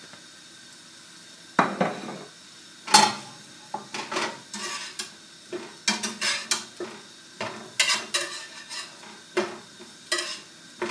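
A spatula knocking and scraping in a frying pan of square sausages, in quick irregular strokes that start about one and a half seconds in, over a faint sizzle of the frying.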